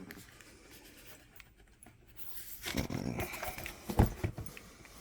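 A dog makes a brief vocal sound about halfway through, followed about a second later by a single sharp click.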